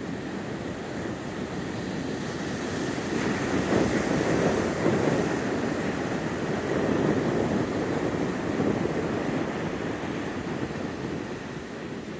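Ocean surf breaking on a sandy beach: a steady wash that swells and fades as waves come in, loudest a few seconds in.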